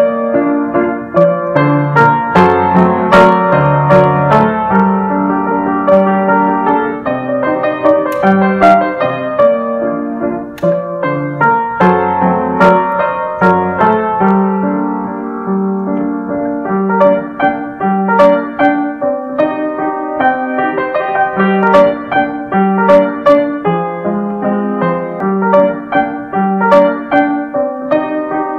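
Solo piano music: a busy melody of quick notes over a bass line, easing off for a few seconds a little past the middle before picking up again.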